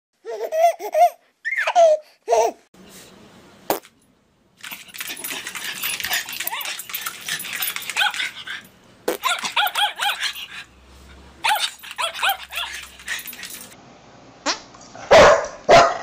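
A dog barking, with a long stretch of people laughing in between.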